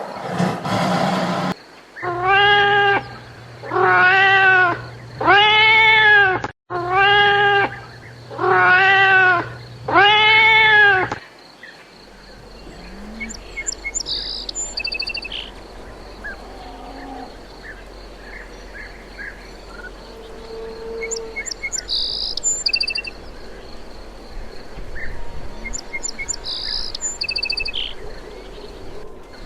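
A cat meowing six times in a row, each meow about a second long, rising then falling in pitch. About eleven seconds in the meows stop, and scattered small-bird chirps and short trills follow at a lower level.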